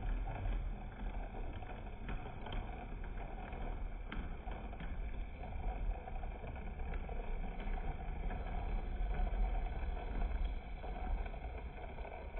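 Model train running along the layout's track: a steady low rumble of its motor and wheels, with a few light clicks.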